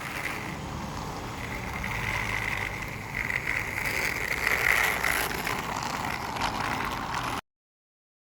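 Toy train running on its track: a small electric motor's steady whine over a rolling rumble, which cuts off suddenly near the end.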